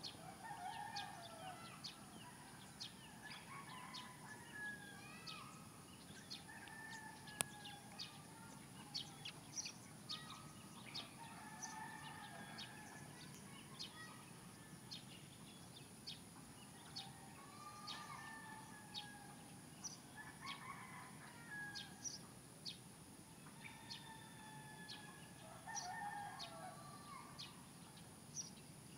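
Roosters crowing faintly, several times, with small birds chirping in short high notes between the crows.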